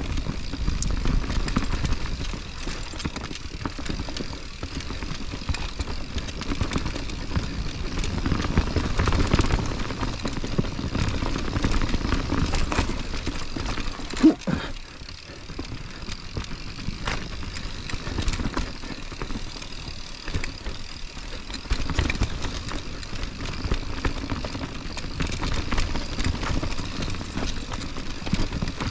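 YT Industries mountain bike riding down soft, loamy singletrack: tyres rolling on dirt, with the bike rattling and clicking over the bumps. About halfway through comes a brief squeal that drops in pitch.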